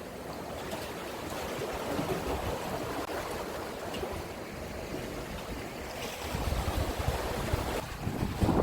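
Strong wind buffeting the microphone over the steady wash of sea waves and swell against the shore; the wind gusts grow heavier about six seconds in.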